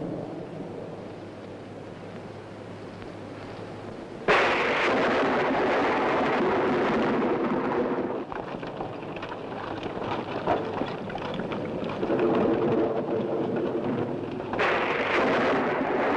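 Thunderstorm: a sudden loud thunderclap about four seconds in, then rain and wind, with another burst of thunder near the end.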